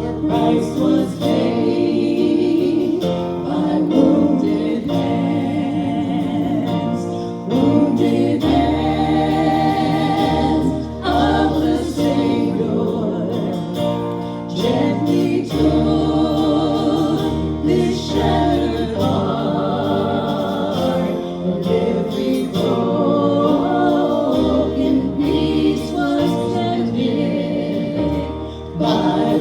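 Gospel worship song: several voices singing together over instrumental backing, with long held bass notes underneath.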